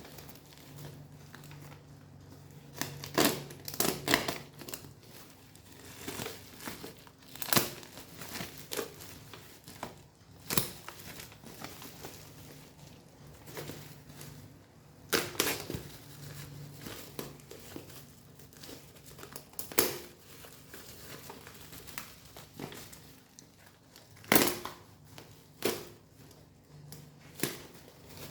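Packaging being handled during an unboxing: irregular crinkling and rustling, with sharp, louder crackles and knocks now and then as the box and wrapping are worked open.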